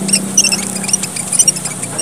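A group of emprit merah papua (small red finches) chattering in many short, high chirps, some in quick runs, over a faint low hum.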